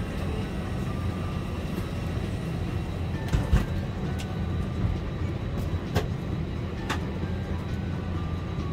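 Steady low mechanical rumble with a few sharp clicks and knocks, one about three and a half seconds in and two more around six and seven seconds.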